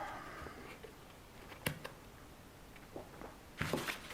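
Quiet handling noises at a work bench: a sharp click, a few light ticks, and a short rustle near the end.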